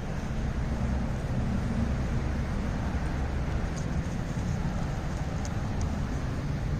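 Steady low rumble of a car driving, heard from inside the cabin: road and engine noise, with a few faint ticks.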